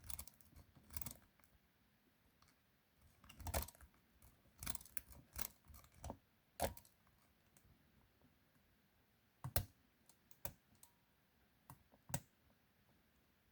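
Lock picks working in a 40mm Mi-Lock padlock: irregular sharp clicks and short scrapes in spurts, with the loudest clicks around a quarter, half and three-quarters of the way through.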